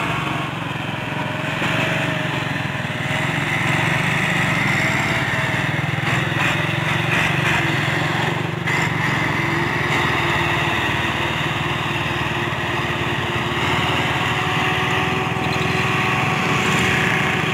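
Diesel tractor engine running steadily under load, hauling a heavily loaded sugarcane trolley.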